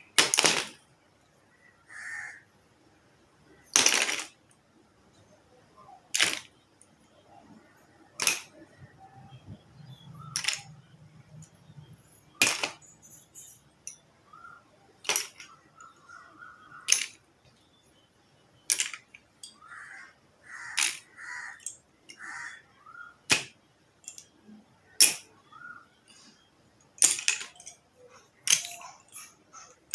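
Slate pencils falling and clattering onto a hard surface as a stacked tower of them is knocked down piece by piece. Sharp clicks come roughly every two seconds, with smaller rattles in between.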